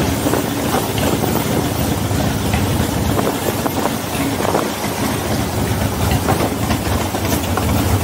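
V-twin motorcycle engine running steadily at low speed, heard from the rider's seat while rolling over a cobblestone street.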